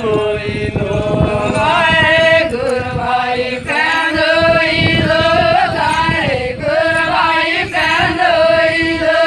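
A group of Adivasi women singing a traditional Gor song together in unison, in chant-like phrases of long held notes that bend at the ends.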